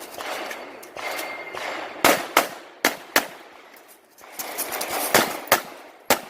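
Glock 34 9mm pistol fired seven times, mostly as quick pairs about a third of a second apart: two pairs about two seconds in, then two more shots about five seconds in and one near the end, typical of double-taps on targets in a competition stage. A rough hiss fills the gaps between the strings.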